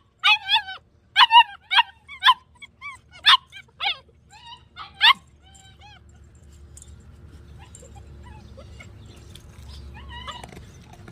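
German Shepherd dog giving short, high yips and whines, about a dozen in quick succession over the first five seconds. It then falls quieter, with only a few faint whines near the end.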